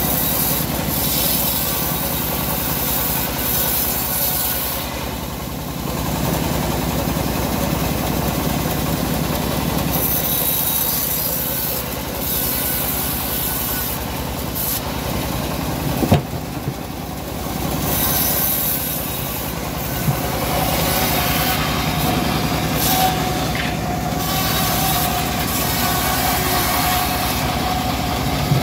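Homemade engine-driven bandsaw mill ripping a teak log: the band blade hisses through the wood in repeated cutting stretches over the steady drone of the power unit. A single sharp knock comes about halfway through.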